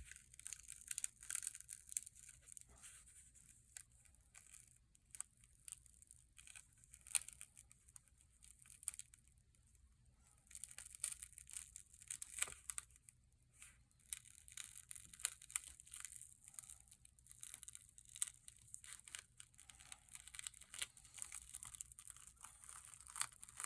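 Faint, irregular crackling and tearing of adhesive as the Samsung Galaxy S20 Plus back glass is pried up by hand and peeled away from the phone, with a quieter pause in the middle.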